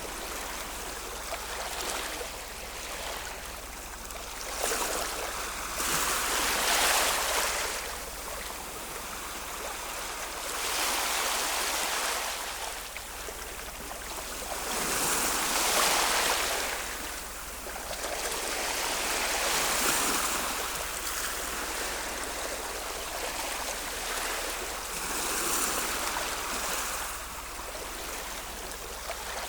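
Ocean waves washing in, the surf swelling and falling back about every four to five seconds.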